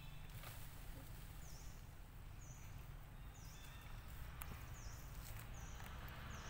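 Faint forest ambience: a steady low rumble with a short, high-pitched call repeating roughly once a second.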